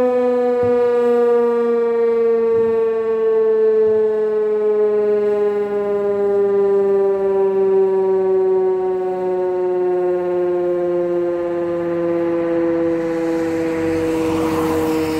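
Fire station siren winding down: one continuous wailing tone whose pitch falls slowly and steadily.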